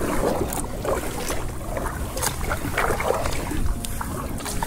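Double-bladed kayak paddle dipping and splashing into the water, a stroke roughly every second, over a low rumble of wind on the microphone.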